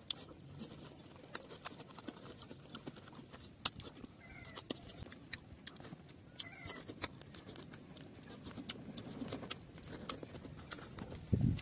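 Close-miked eating sounds: chewing and lip smacking on pork liver curry and rice, a string of short wet mouth clicks, with a louder low thump near the end.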